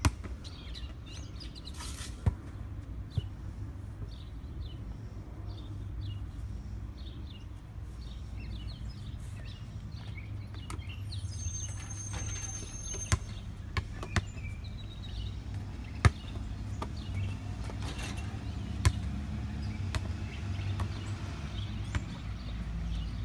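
A basketball bouncing on an asphalt driveway and striking the backboard and rim, heard as sharp thuds spaced several seconds apart. Behind it are a steady low outdoor rumble and birds chirping.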